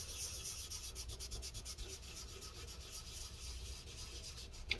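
Paper towel wetted with isopropyl alcohol rubbed quickly back and forth over a laptop's cooling surface, wiping off old thermal paste, in steady, faint scrubbing strokes. A brief squeak comes near the end.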